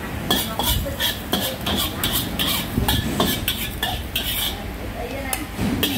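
Metal spatula scraping and clanking against a steel wok in quick strokes, about three to four a second, thinning out a little over halfway through.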